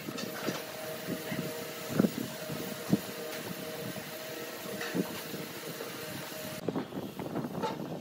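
A steel ruler and pen being handled on a wooden ring and workbench: a few light knocks as the ruler is shifted and set down, with the two strongest a second apart. Under them runs a steady machine hum that cuts off near the end.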